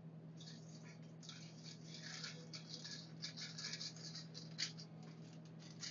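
Faint crinkling of aluminum foil as it is handled and cut with scissors, in scattered small crackles.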